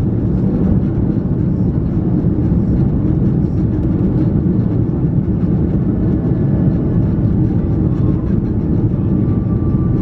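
Cabin noise inside an Airbus A330 airliner in flight: a loud, steady low rumble of the engines and the air rushing past the fuselage.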